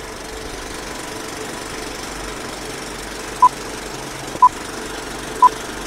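Old film projector sound effect, a steady rattling hiss, joined about three and a half seconds in by three short beeps a second apart, as in a film countdown leader.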